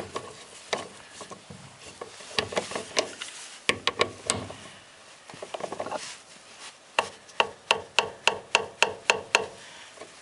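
Ratchet wrench with a 17 mm socket on an extension, tightening the fuel-line bolt on a fuel pump's top plate: scattered clicks and scrapes, then a run of evenly spaced clicks, about three or four a second, in the second half.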